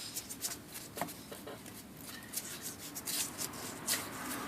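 Compressed air blown from an air nozzle in a series of short hissing puffs, clearing old oil and grime from around an IBM Selectric typewriter motor. The puffs are strongest about three to four seconds in.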